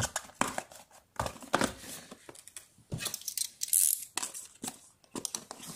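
Cardboard phone-box tray and packaging being handled, with scraping, rustling and tearing sounds and many short clicks. A bright, hissy scrape comes just before four seconds in.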